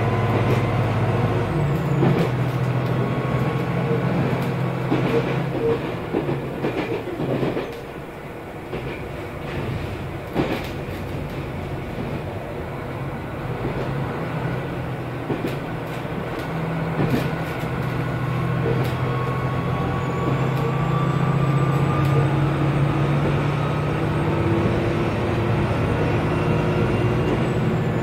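KiHa 201 diesel railcar running. The engine pulls hard at first, then drops off about two seconds in, leaving a quieter coast with wheel and rail-joint clicks. Past the middle it picks up power again, growing louder with a rising whine toward the end.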